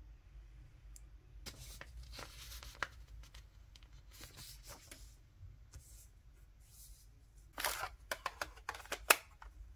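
Soft paper rustling as a worksheet is handled on a desk, then a quick run of light clicks and taps about three-quarters of the way in as a calculator is picked up and set down on the paper.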